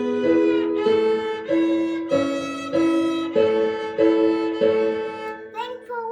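Violin playing a simple beginner melody in separate, evenly spaced bowed notes, about two a second. The notes stop near the end, where a child's voice starts.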